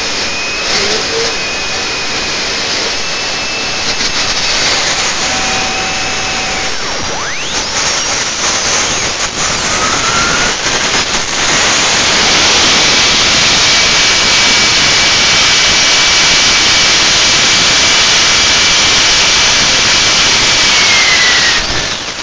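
Kingtech K80E kerosene-fuelled model jet turbine running: a steady rushing hiss with a high whine, then it spools up about halfway through and runs louder at high power, and the whine falls as it throttles back near the end.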